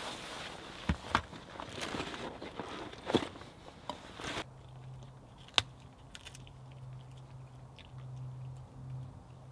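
Rustling and clunking of gear being handled in a rucksack, with a few sharp knocks. About four and a half seconds in it gives way to a Jack Russell terrier gnawing a stick: quiet crunches and small clicks, with one sharp click.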